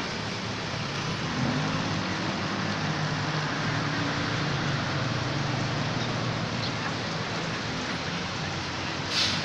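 Street traffic: a steady wash of passing cars and motorbikes, with a vehicle engine's low hum coming up for a few seconds. A short, sharp hiss sounds near the end.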